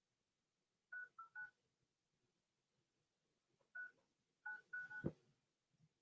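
Faint touch-tone (DTMF) keypad beeps as a phone number is dialled: three quick beeps about a second in, a single beep near four seconds, then three more quick beeps, followed by a short low thump.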